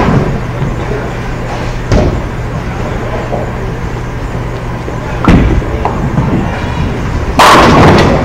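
Bowling alley sounds over a steady low hum: a few sharp knocks of balls and pins, then near the end a loud crash of bowling pins lasting under a second as a bowling ball strikes them.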